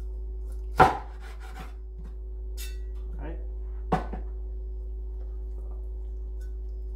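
Meat cleaver chopping through a baked chicken onto a wooden cutting board: two sharp chops about three seconds apart, the first the louder and followed by a few lighter knocks, over a steady hum.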